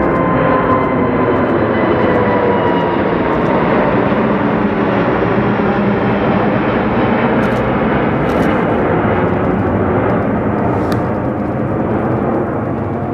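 Airbus A380's four Rolls-Royce Trent 900 jet engines at climb power as the airliner passes low overhead on departure: a loud, steady jet roar. A whine in the roar drops slightly in pitch over the first few seconds, and the sound eases off a little near the end.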